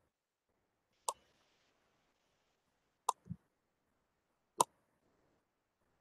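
Three sharp clicks, spaced about one and a half to two seconds apart, with a short low thud just after the second click, over faint room hiss.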